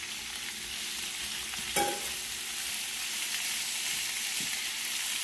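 Raw shrimp sizzling and frying in hot oil with browned garlic in a skillet, the sizzle building as they hit the pan and are stirred. One sharp clink about two seconds in.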